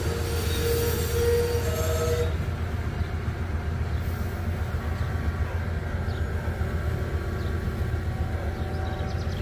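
Freight train passing: the locomotive's air horn sounds and cuts off about two seconds in, leaving the steady low rumble of the engines and rolling cars.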